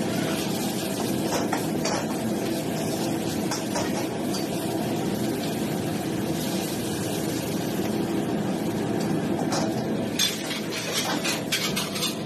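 Gas wok burner and kitchen extraction hood running with a steady rush of noise, while a metal ladle clanks and scrapes against a steel wok as stir-fried noodles are tossed and served. The clanks come now and then, with a quick run of them near the end.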